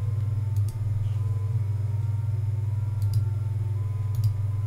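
Steady low electrical hum, with a few faint computer-mouse clicks.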